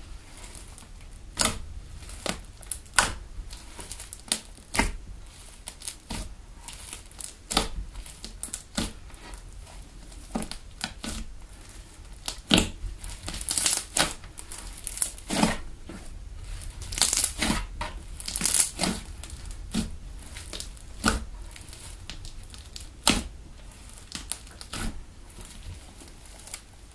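Hands squeezing and pressing a soft slime made from PVA craft glue and foaming hand soap, giving irregular sharp squishy pops and clicks. The pops come thicker and crackle more in two spells, about halfway through and again a little later.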